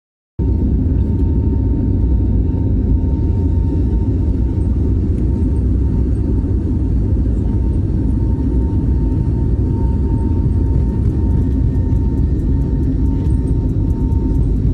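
Jet airliner cabin noise in flight: a steady, loud low rumble of engines and airflow with a thin steady whine, starting abruptly about half a second in.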